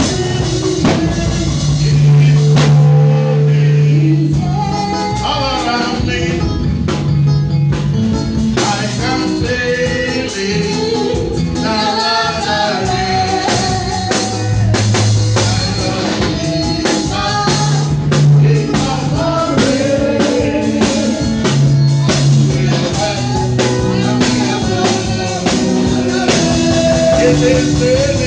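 Live church praise music: singing over bass guitar, guitar and drum kit with a steady beat.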